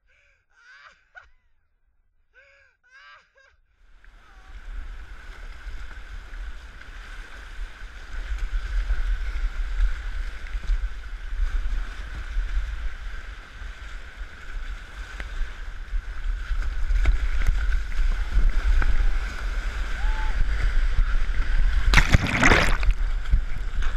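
Fast floodwater rushing around a kayak, with a deep rumble on the mic, growing louder as the boat moves downriver. After a few faint short sounds at the start, it builds steadily, and a loud splash comes near the end as the camera dips into the water.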